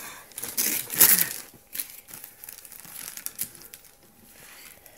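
Christmas wrapping paper rustling and crinkling as it is pulled off a gift box, in uneven bursts, loudest about a second in.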